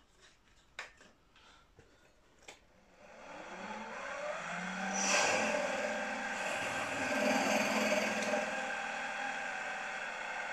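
A few faint clicks, then about three seconds in a drill press motor starts and its whine rises in pitch as it comes up to speed, settling into a steady whir with several tones while a small slot drill is fed slowly down into a metal casting.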